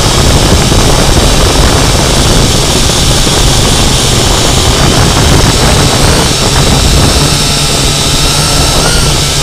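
Syma X8C quadcopter's motors and propellers running loud and close, a steady buzz with a high whine, picked up by the camera mounted on the drone itself. A whine shifts in pitch near the end.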